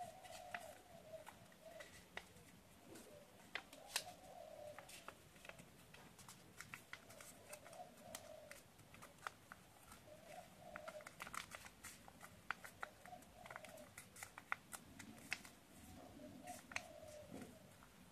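Origami paper crinkling and crackling in many small sharp snaps as it is folded and creased by hand. A pigeon coos faintly several times in the background.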